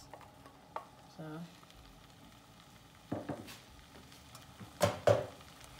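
Diced carrots scraped from a bowl into a saucepan of chicken with a wooden spoon, over a faint sizzle from the pan. A few short scrapes and knocks of the spoon sound about three seconds in and just before five seconds in.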